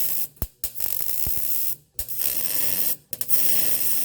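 Welder arc crackling and hissing in about four short bursts, stopping and restarting, while tacking an exhaust pipe to a muffler. The arc keeps breaking off because there is a gap between the pieces that the weld is trying to bridge.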